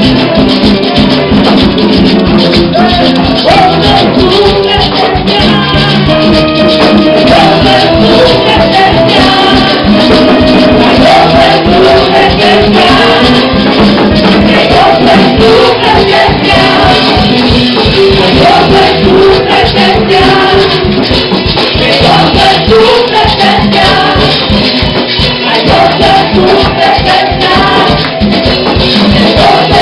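Live church worship band playing a praise song, with congas, electric guitars, bass, keyboard and drums under women singing lead into microphones, at a steady beat.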